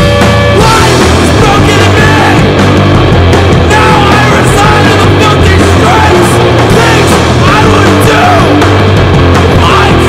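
Loud, aggressive punk rock. A distorted guitar chord rings out, then the full band crashes in about half a second in with drums and bass under yelled vocals.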